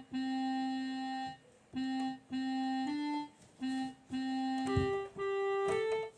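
Electronic keyboard playing a slow one-note-at-a-time melody: about nine held notes, each at an even loudness and cut off sharply, mostly repeating one low note before stepping up to higher notes near the end. The faltering pace fits a player trying a song for the first time.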